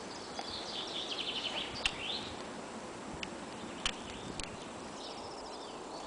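Small songbirds singing: a quick run of repeated high notes in the first two seconds, then short rising and falling chirps near the end, over a steady background hiss. A few sharp clicks come in between.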